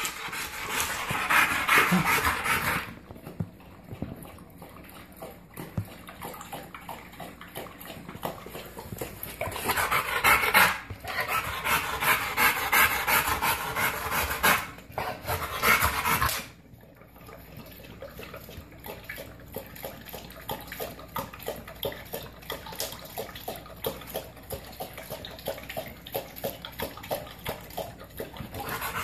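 American bulldog panting hard after a run, in loud breathy stretches. About two-thirds of the way in, this gives way to quick, rhythmic lapping of water from a steel bowl.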